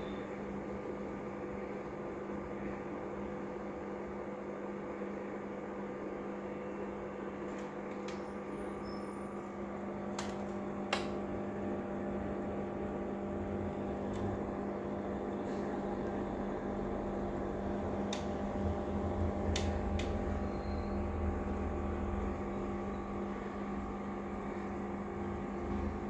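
Aquarium pump humming steadily, with a few faint clicks.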